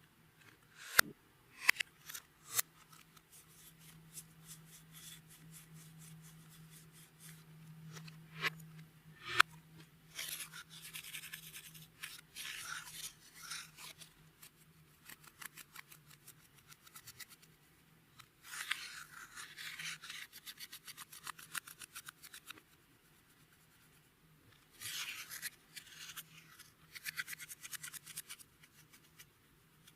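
Clear slime being squished and stretched by hand, making sticky crackling and popping in three long stretches, with a few sharp clicks in the first ten seconds.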